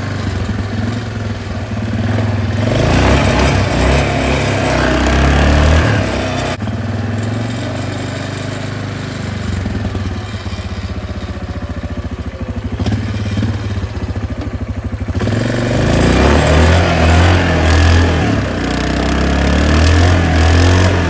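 Quad bike (ATV) engine running under load as it is ridden over grass and mud, revving up hard at about three seconds and again from about sixteen seconds, running lower in between.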